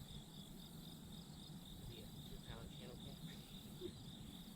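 Crickets chirping faintly in a steady, evenly pulsing high trill.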